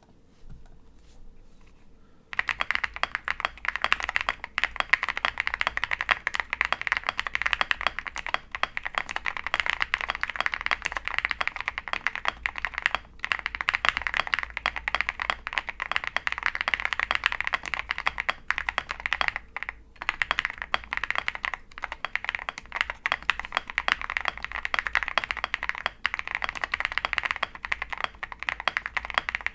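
Fast, continuous typing on a mechanical keyboard: an OwLabs Jelly Epoch with a polycarbonate plate, full foam, Krytox-lubed Konpeitou switches and MT3 PBT keycaps. The typing starts about two seconds in and runs on with a couple of brief pauses.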